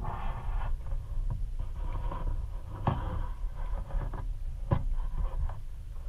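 Underwater ambience: a steady low rumble of moving water, with a brief hiss at the start and two sharp clicks, about three seconds in and again near five seconds.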